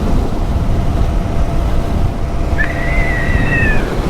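Wind buffeting the microphone and road noise from a motorcycle moving at speed. About two and a half seconds in, a high, steady whistle-like tone sounds for just over a second, dipping slightly at the end.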